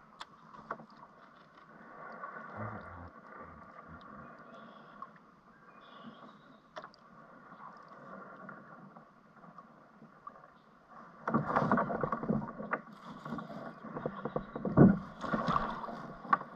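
Splashing and bumping at the side of a kayak as a hooked fish is brought alongside and lifted from the water. It is faint for the first eleven seconds or so, then louder and rougher, with a sharp knock near the end.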